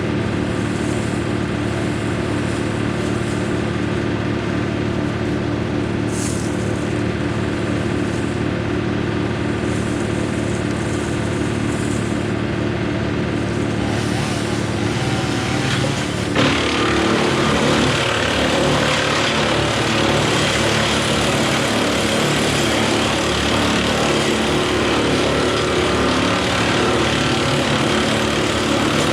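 Tractor diesel engine running steadily. About 16 seconds in, the sound turns suddenly louder and rougher.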